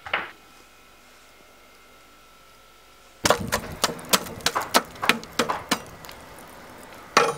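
Metal rod raking lumps of burning charcoal in a steel mangal: a quick, irregular run of sharp clinks and clatters starting about three seconds in, thinning out, then another burst near the end. Before it, a single knock at the very start and then little to hear.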